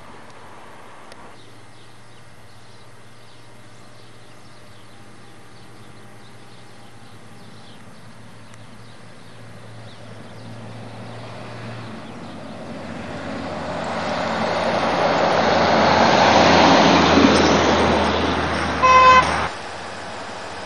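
A road vehicle passes close by on a wet road, its tyre and engine noise swelling over several seconds and then fading, followed by a short horn toot near the end that cuts off abruptly.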